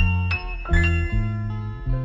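Closing music: a melody of struck, ringing notes over a bass line, a new note about every third of a second.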